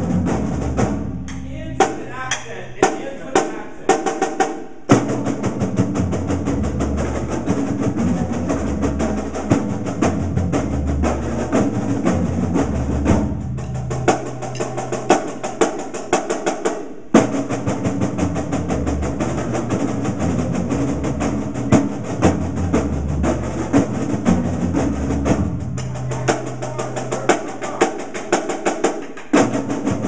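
A marching drumline of snare drums and bass drums playing a triplet diddle warm-up exercise: fast, even snare strokes over regular low bass drum beats. It breaks off briefly about five seconds in and again about seventeen seconds in.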